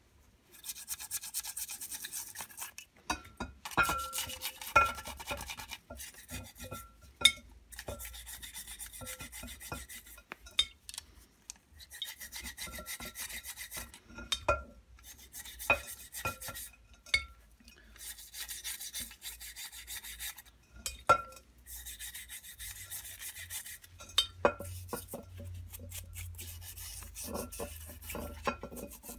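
A small stiff brush scrubbing the inside of a cast rotavator housing wet with paraffin, in repeated scratchy strokes of a second or two each. Sharp clicks and knocks come now and then between the strokes.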